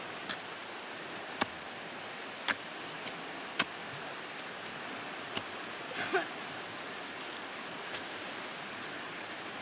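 Hand hoe chopping into soil and plant roots, about seven sharp knocks spaced roughly a second apart, over the steady rush of a small stream.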